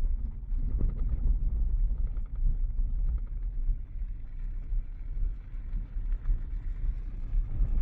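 Kia Picanto driving on a gravel road: a steady, uneven low rumble of tyres and road noise, with a few short ticks of loose stones.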